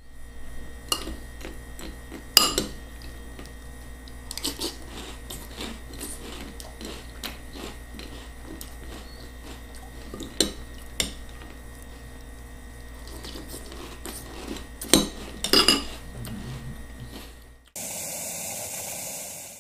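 A metal spoon clinking and scraping against a ceramic bowl while someone eats, with sharp clinks at irregular intervals over a steady low hum. Near the end this gives way to a steady hiss.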